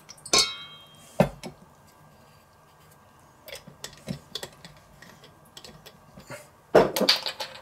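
Glass sauce bottle handled over a stainless steel bowl: a short ringing clink, then a sharp knock as it is set down on a wooden cutting board, a few faint clicks of bottles and caps, and a louder clatter near the end.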